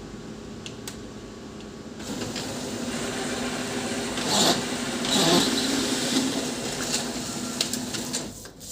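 HP LaserJet Pro M501 laser printer running a test print: its drive motor starts about two seconds in and hums steadily, with two louder rustles of paper feeding through near the middle. The motor stops shortly before the end. The page passes through without jamming, which shows that the paper-jam fault is fixed.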